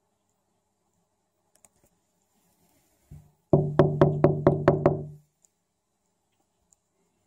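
Knuckles rapping quickly on a window, seven sharp knocks in under two seconds with a low ringing tone under them.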